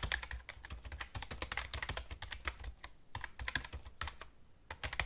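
Computer keyboard typing: rapid, irregular key clicks that pause briefly about three seconds in and again shortly before the end.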